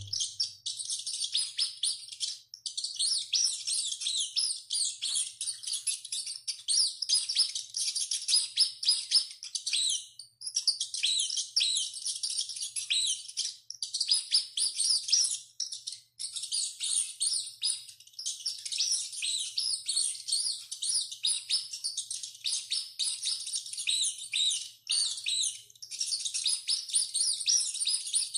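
A small animal squeaking: a dense stream of rapid, high-pitched squeaks and chirps with only a few short pauses.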